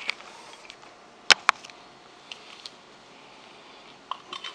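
Camera handling noise as it is moved and set down: two sharp knocks a little over a second in, then a few light taps and clicks near the end, over quiet room tone.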